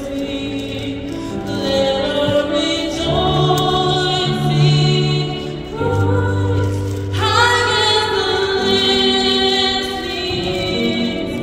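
Singing amplified over an arena sound system, a slow melody of long held notes.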